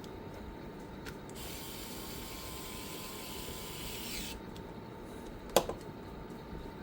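Small handling sounds during laptop reassembly: a hiss lasting about three seconds, then a single sharp click near the end.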